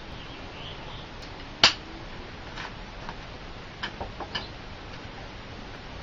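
One sharp click a little under two seconds in, then several lighter clicks and taps, over a steady background hiss.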